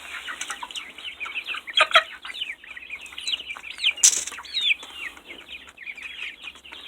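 A flock of young chickens calling together, with many short, high, falling peeps overlapping. A sharp click sounds about four seconds in.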